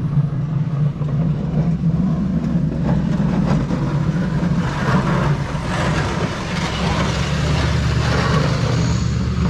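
The engine of a snow-plowing vehicle running steadily under load, with a rough noisy layer building up about halfway through.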